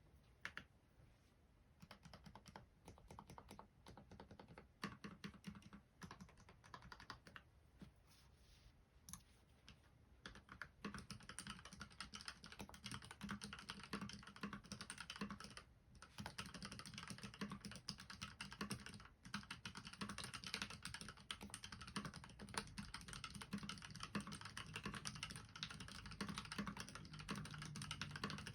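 GK61 mechanical keyboard with spray-lubed Gateron red linear switches and sound-dampening foam, being typed on. The keystrokes are scattered at first, then become fast and continuous about a third of the way in.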